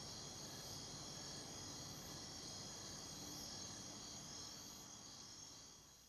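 A steady chorus of crickets and other insects, fading away near the end.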